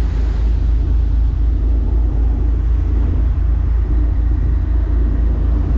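A fishing boat's engine running steadily underway, a loud, even low rumble with the wash of its wake.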